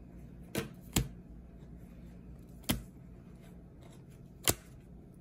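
Trading cards being laid down one by one onto a pile of cards on a table: four short, crisp snaps, two close together about half a second apart early in, then one near the middle and one near the end.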